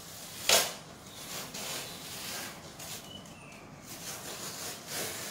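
Faint handling noise from a glass blender jar being turned in the hands, with one short, louder noise about half a second in.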